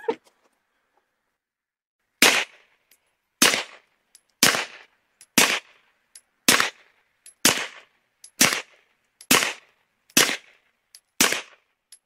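Ten suppressed shots from a Taurus G3 Tactical 9mm pistol fitted with a Rugged Obsidian 45 suppressor, fired at a steady pace of about one a second, starting about two seconds in.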